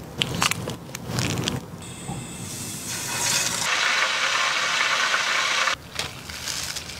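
Chicken drumsticks deep-frying in a pot of hot oil: a steady sizzling hiss that builds about two seconds in, is loudest for the next few seconds and cuts off suddenly near the end. Before it come soft, wet clicks of gloved hands handling the raw chicken.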